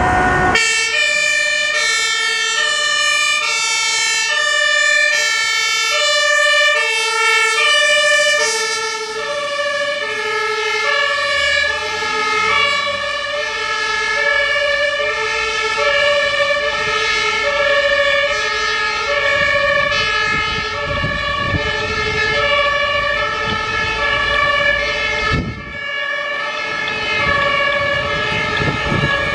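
Two-tone German fire service sirens (compressed-air Martinshorn) on two command vehicles sounding together, alternating between a high and a low note, the two sirens drifting out of step after about nine seconds. Vehicle engines run beneath them.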